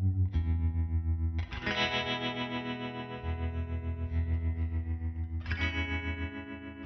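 Background music: guitar with chorus and distortion effects playing sustained chords over a pulsing beat, with a new chord struck about one and a half seconds in and again near the end.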